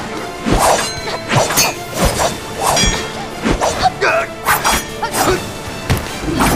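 Film fight sound effects: a quick series of punch and kick hits and body impacts over dramatic background music.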